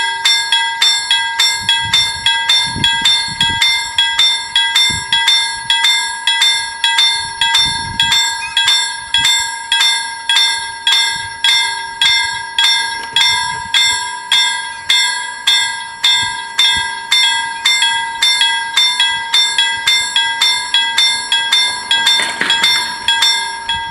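Swedish level-crossing warning bells ringing in a steady beat of about two strokes a second, stopping near the end once the barriers are down.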